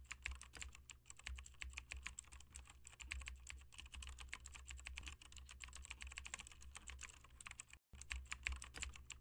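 Rapid keyboard-typing clicks, several a second, over a low steady hum, breaking off for a moment near the end.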